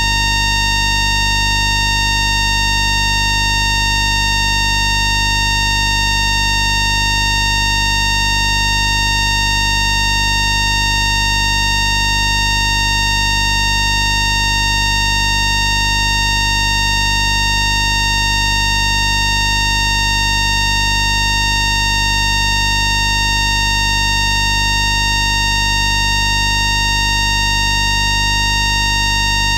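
Electromagnetic field of an FS ALe642 railcar's static converter (ASA1 auxiliary converter), picked up by an inductor used as a microphone rather than through the air. It is a loud, perfectly steady electronic whine made of several fixed tones over a low hum, with no change in pitch: the converter running at steady state after start-up.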